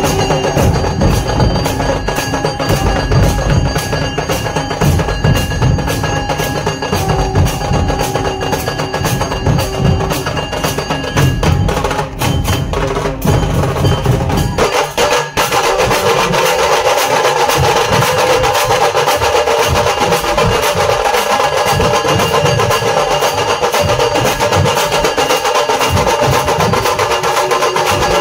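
A dhol-tasha troupe playing many large barrel drums (dhol) in a fast, driving rhythm, with higher ringing strokes over it. About halfway through, the deep booming drops away and the playing sounds higher and denser.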